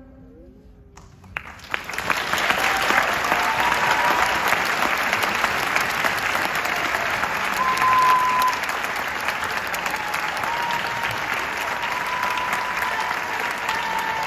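A brief hush, then an audience applauding and keeping it up from about a second and a half in. A few held high calls sound above the clapping, the loudest about eight seconds in.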